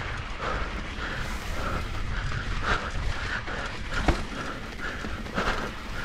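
Mountain bike descending a dirt singletrack: steady wind rumble on the rider-mounted microphone, with the tyres and bike rattling over the dirt and a sharp knock about four seconds in.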